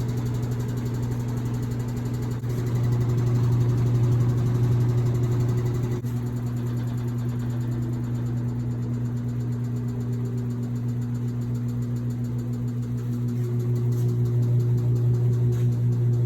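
Samsung top-load washing machine in its spin cycle: a steady low motor hum that swells and eases as the drum changes speed, then grows louder near the end with a throbbing pulse.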